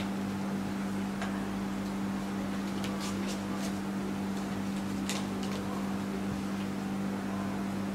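A steady low electrical hum fills the room, with a few faint clicks of playing cards being handled at the table around three and five seconds in.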